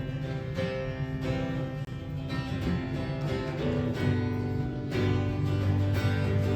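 Live band playing the instrumental introduction of a song: acoustic guitar strumming chords in a steady rhythm, with a stronger low part coming in a little over halfway through.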